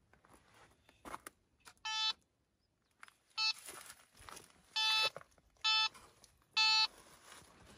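Aziz K-37 metal detector sounding five short beeps of the same pitch over about five seconds as its search coil sweeps over one spot: the detector's signal that there is a metal target in the ground.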